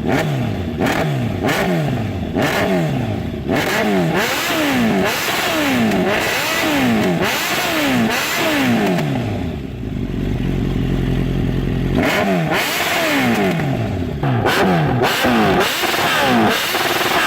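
Suzuki Bandit 1200's inline-four revved hard through a Black Widow full stainless exhaust with the end-can baffle removed: repeated throttle blips, each rising and then falling back, with a short spell at idle about ten seconds in. Very loud.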